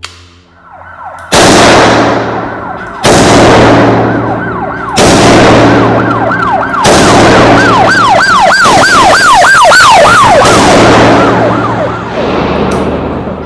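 A siren sound effect: a wail that turns, past the middle, into a fast rising-and-falling yelp of about three to four cycles a second. Under it, a loud burst of noise starts four times, about every two seconds, each one thinning out as it goes.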